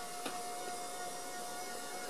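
Electric motor of a pop-up TV lift whining steadily as it raises a flat-screen TV out of the cabinet, with a light click about a quarter second in.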